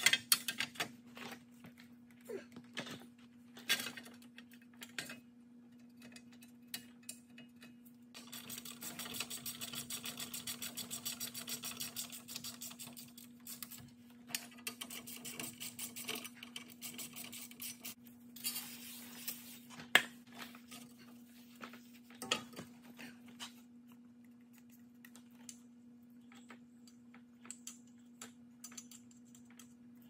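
Metal parts and hand tools clinking and knocking as a car's front wheel hub and brake dust shield are worked on and fitted back together, over a steady low hum. From about eight to thirteen seconds in comes a stretch of rapid, even rasping.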